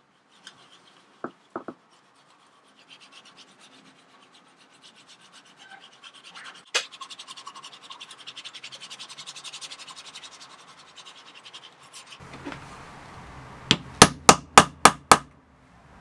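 A cloth rubbed briskly back and forth over a leather sheath, buffing it in quick, even strokes. Near the end come about seven quick metal strikes, the loudest sound here: hammer blows on a snap-setting punch, setting a metal snap fastener into the leather.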